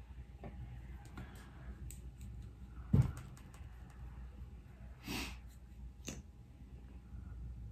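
Small clicks and taps from makeup items being handled at a vanity table, with one sharper, louder knock about three seconds in and a short breathy rustle about five seconds in.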